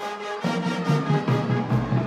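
Marching band playing: held brass chords, then about half a second in a louder, fuller low part comes in, with deep bass added near the end and a steady drum beat underneath.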